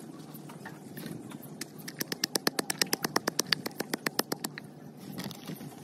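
Wooden pestle pounding chillies in an earthenware mortar: a fast, even run of knocks, about seven a second, starting about two seconds in and stopping about four and a half seconds in.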